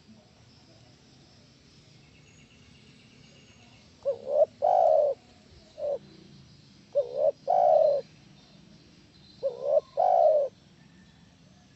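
Spotted dove cooing: three phrases starting about four seconds in, roughly three seconds apart, each two short coos running into a longer coo.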